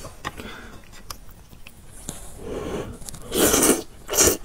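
Spicy instant noodles being slurped off chopsticks: a few breathy slurps in the second half, the loudest about three and a half seconds in and a short sharp one just after four seconds, with a few soft clicks before them.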